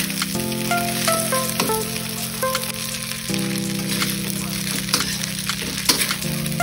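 Rice vermicelli stir-frying in a wok: steady sizzling, with scrapes and taps of a metal spatula tossing the noodles. Background music with held chords and a stepping melody plays throughout.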